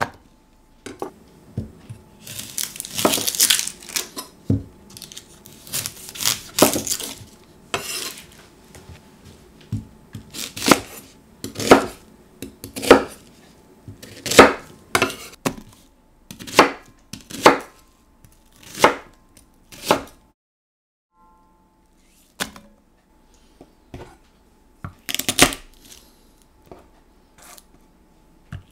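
Kitchen knife chopping pumpkin and onion on a wooden chopping board: a sharp knock at each stroke, mostly single strokes about a second apart, with a quick flurry of cuts early on and a short pause before the last few.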